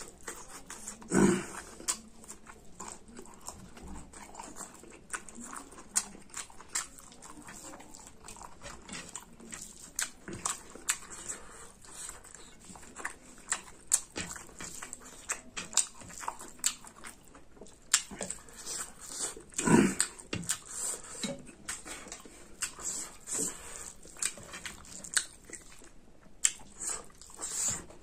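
Close-miked mouth sounds of a person eating rice and pork curry by hand: wet chewing and lip smacking in a steady run of small clicks. There are two louder, lower sounds, one about a second in and one near twenty seconds.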